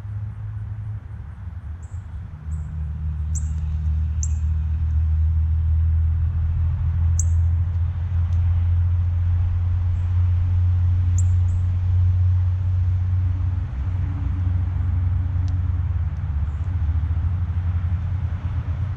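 A low, steady rumble builds over the first few seconds and then holds, with short, high chirps from small birds heard several times over it.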